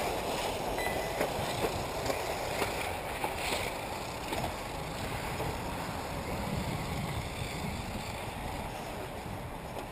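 1/8-scale electric off-road RC buggies running on a dirt track: a steady rush of tyre and motor noise, with a few light knocks in the first few seconds.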